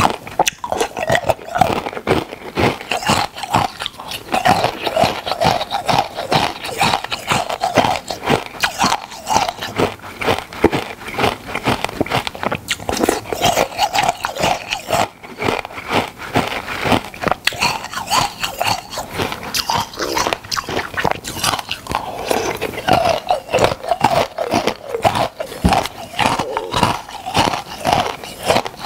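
Close-miked biting and chewing of crunchy ice icicles: a continuous run of crisp cracks and crunches, bite after bite.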